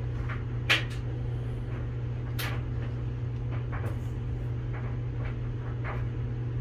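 A few sharp clicks and light taps from handling a plastic syringe over a cylinder head while measuring its chamber volume. The loudest click comes about a second in and a fainter one a couple of seconds later. A steady low hum runs underneath.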